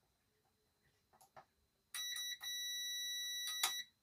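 Digital multimeter's continuity beeper giving a steady high beep for nearly two seconds, with one short break near its start, as the probes across the power switch show it conducting when pressed: the switch is working. A couple of faint clicks come before the beep.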